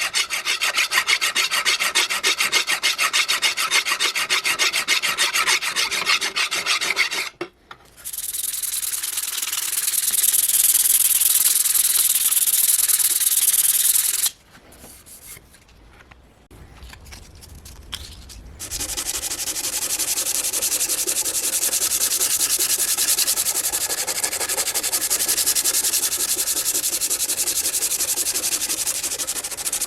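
Abrasive hand work, filing and sanding, with quick back-and-forth rasping strokes. It comes in stretches broken by short pauses: a smoother steady hiss in the middle, and about four seconds of near quiet a little past halfway.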